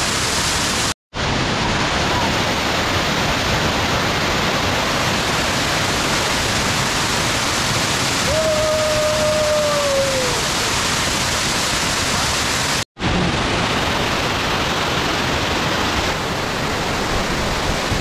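Waterfall water pouring and splashing over rock close up, a loud steady rushing that cuts out for an instant twice. About halfway through a person calls out once, a single held note that falls slightly in pitch.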